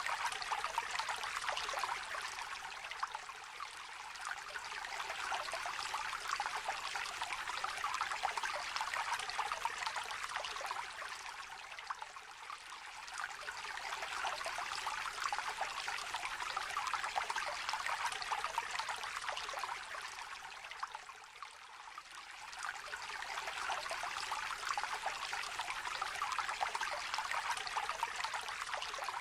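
A small, shallow stream trickling and babbling over stones, a continuous bright rush of water that swells and eases gently every several seconds.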